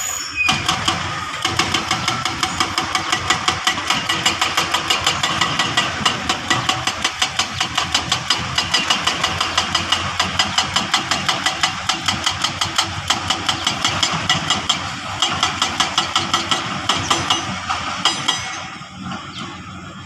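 Heavy construction machinery's diesel engine running with a rapid, regular clatter of about four to five knocks a second, easing off near the end.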